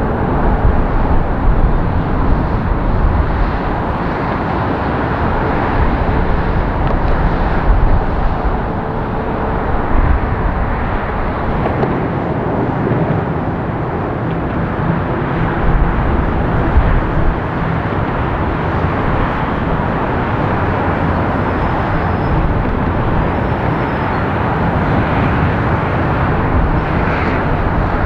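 Jet airliner engine noise: a loud, steady rumbling roar, strongest low down, swelling slightly now and then.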